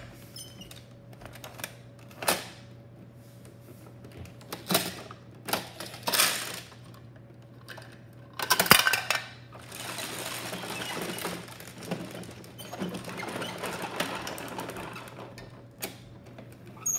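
Bruder plastic toy garbage trucks and toy wheelie bins being handled on a wooden floor: several sharp plastic clicks and knocks, then a longer stretch of plastic scraping and rattling.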